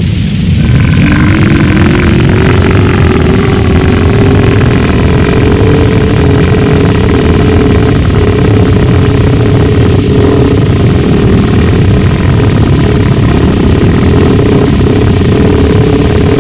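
Harsh gorenoise: a dense wall of distorted low rumble, joined about half a second in by a droning tone that slides up and then holds steady, with fainter higher whines above it, engine-like in character.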